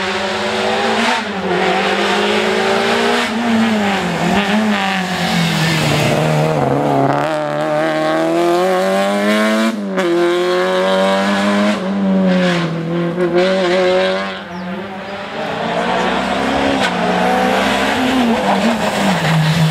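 Peugeot 206 rally cars driving hard past one after another, engines revving up and down as they brake and accelerate through the gears. The engine note breaks off abruptly several times as one car gives way to the next.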